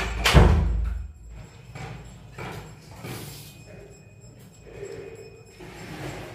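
A heavy thump about half a second in, then soft, irregular sounds of rice being mixed and squeezed by hand on a metal plate, with a mouthful taken near the end.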